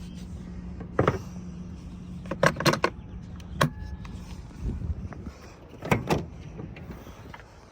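Several sharp clicks and knocks, a cluster of them about two and a half seconds in and another pair near six seconds, over a steady low hum that fades out about halfway through.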